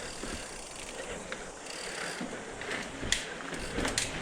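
Mountain bike rolling along a dirt trail, heard from a microphone on the rear wheel: steady tyre and drivetrain noise with scattered clicks and rattles, several sharp ones in the last second or so.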